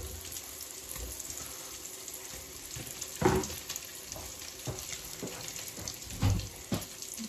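Hot oil crackling steadily as samosas and spring rolls deep-fry, a continuous hissing sizzle. A short thump comes about three seconds in, and a couple more near the end.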